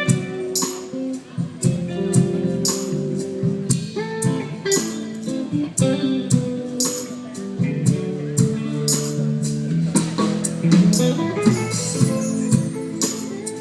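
Live band music: guitar over a steady percussion beat.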